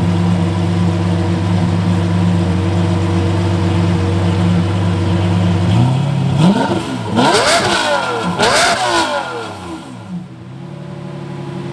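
A performance car's engine idling with a steady low note, then revved in three quick blips about six seconds in, each climbing and falling back, before it settles to idle again.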